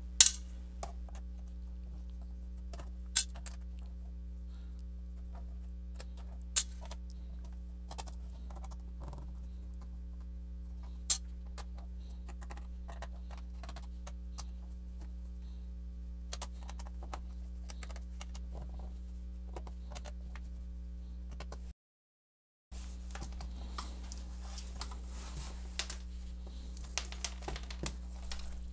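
Small screwdriver working screws out of the plastic underside of an Acer C720 Chromebook: scattered light clicks and ticks, with a few sharper clicks, over a steady electrical hum. Near the end, denser clicking and rustling as the laptop is handled and turned over.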